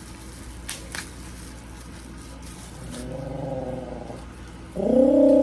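A dog giving long whining vocal sounds that waver up and down in pitch: a softer one starting about three seconds in, then a much louder one near the end. Two light clicks come about a second in.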